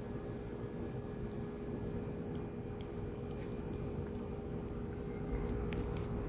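A steady mechanical hum and low rumble with a constant held tone, getting slightly louder about five seconds in.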